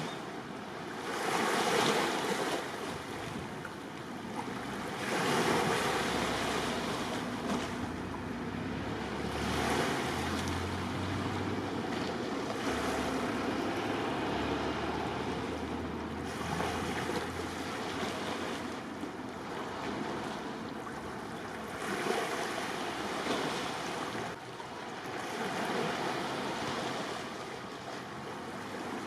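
Sea waves washing in at the harbour, swelling every few seconds, with wind on the microphone.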